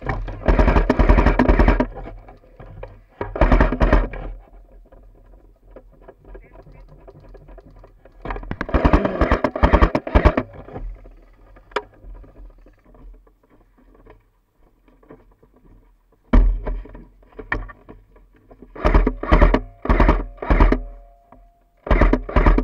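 Background music with guitar, in loud stretches separated by quieter gaps, turning into a run of short punchy hits in the second half.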